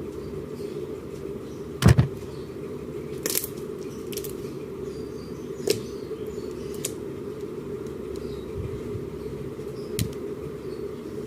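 Slime being played with by hand: a few sharp pops and crackles, the loudest about two seconds in, over a steady low hum.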